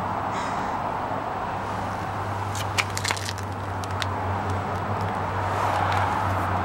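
Daihatsu Hijet's 550cc engine idling steadily with a low hum. A few light clicks come near the middle.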